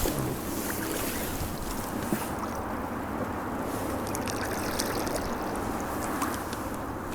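Steady gusty wind with choppy lake water lapping against an inflatable rubber boat.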